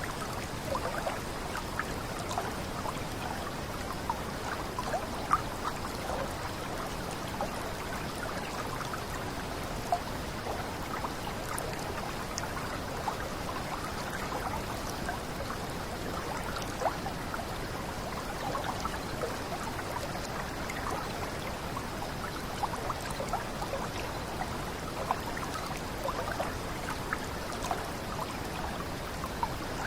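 Small water cascade running steadily, with many little splashes and drips plinking over a constant rush.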